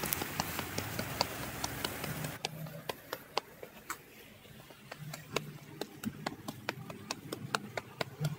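Footsteps climbing concrete stairs, a steady rhythm of sharp shoe taps, about two to three a second.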